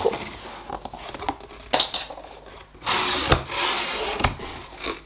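Cardboard box being handled as its taped flaps are pulled open: rubbing and scraping with a few sharp knocks. A louder stretch of rubbing about three seconds in comes from a sleeve brushing close to the microphone.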